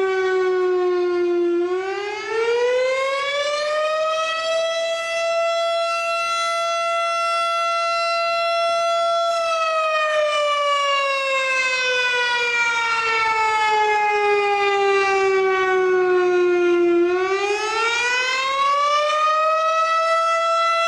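A siren wailing: one loud pitched tone with many overtones. It climbs about two seconds in, holds high for several seconds, slides slowly down, then climbs again near the end.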